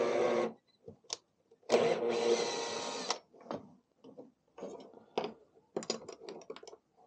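Cordless drill-driver running in short bursts: one stops about half a second in, another runs for about a second and a half, its bit turning in a small wooden block. After that come light metallic clicks and taps as a bolt is tightened with an open-ended spanner.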